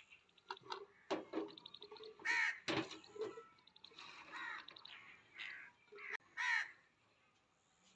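Crows cawing about four times, short harsh calls spaced a second or so apart. Light knocks and rustles of green chillies being dropped and pressed into a blender jar come in between.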